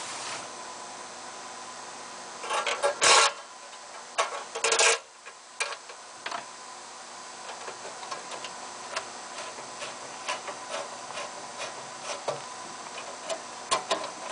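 Phillips screws being turned in by hand to fasten the fan of an ozone generator: small, irregular metallic ticks and rubbing from the screwdriver and screws. Two louder bursts of clattering, about three and five seconds in, as parts are handled.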